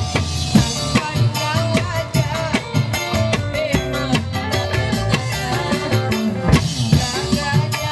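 Live band music with electronic keyboard, electric guitar and drums keeping a steady beat, and a woman singing into a microphone over it.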